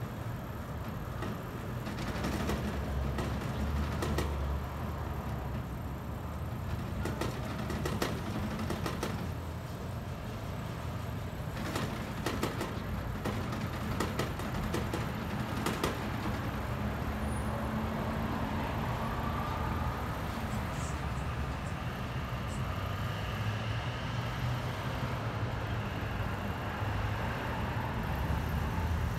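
Steady rumble of street traffic, with scattered short clicks and knocks through the first half.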